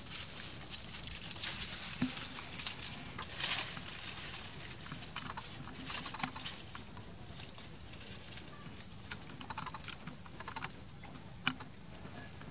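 Leaves and twigs rustling, crackling and snapping as a baby macaque climbs and pulls at branches in a tree, busiest in the first few seconds, with one sharp snap near the end.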